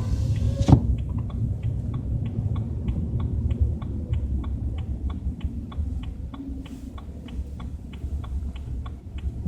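Low rumble in a BMW 320i's cabin while driving, the strange rumbling the owner hears at 30 to 40 km/h. A thump comes just under a second in, followed by a steady ticking about three times a second.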